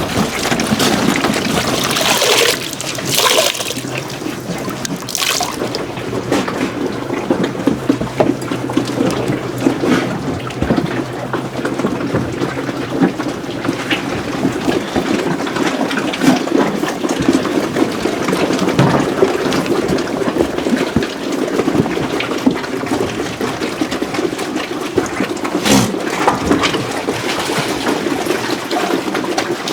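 Liquid splashing and trickling, with an irregular running texture and a few brief louder splashes.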